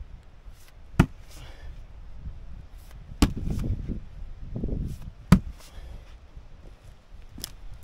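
Axe chopping into wood: three sharp strikes about two seconds apart and a lighter fourth near the end, with low rustling of debris between them.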